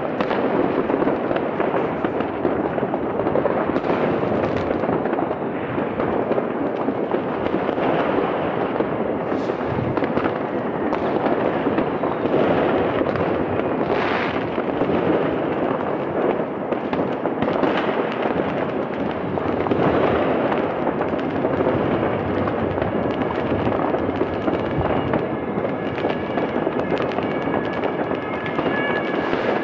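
Fireworks rockets and firecrackers going off all around in a dense, unbroken barrage of bangs and crackling.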